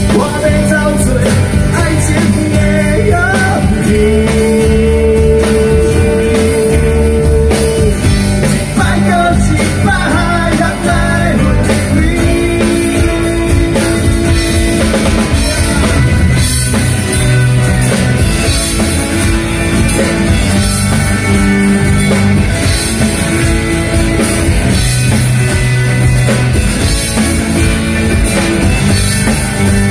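A live rock band playing through a PA: drum kit, bass, electric and acoustic guitars, with long held melody notes carried over the top.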